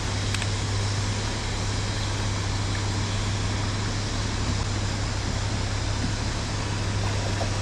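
Steady rushing of river current, an even noise that does not change, with a low steady hum underneath.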